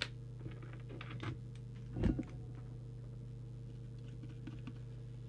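Small taps and clicks of a plastic coil-trimming tool being fitted to the coil cores and handled on a CB radio's circuit board, with a heavier knock about two seconds in. A steady low electrical hum runs underneath.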